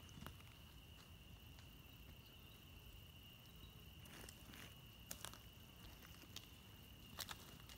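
Near silence: a faint, steady high-pitched insect drone, with scattered light clicks.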